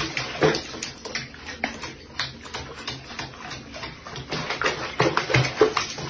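Bathwater splashing and sloshing in a sink as a cat paws at it, in short irregular splashes, with a few short low cat sounds among them.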